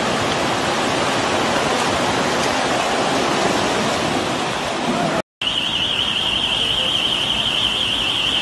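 Floodwater rushing down a street, a loud steady rush of water. After a sudden cut about five seconds in, a high, rapidly warbling electronic alarm sounds over the water.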